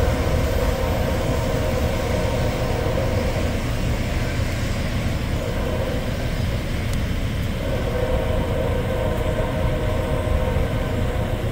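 Norfolk Southern ballast train's hopper cars rolling away on the rails: a steady low rumble of wheels on track, with a humming tone that fades out and returns twice.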